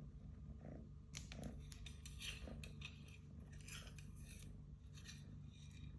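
A cat at play, making a run of short scratchy scraping and rustling sounds, starting about a second in and easing off near the end, over a steady low hum.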